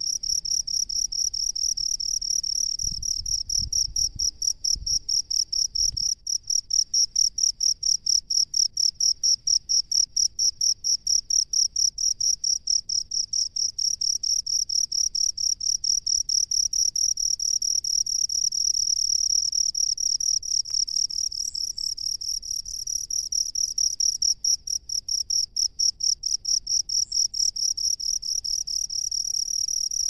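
Male field cricket singing at the mouth of its burrow in dry rice-field soil: a steady, high-pitched run of chirps, about three a second.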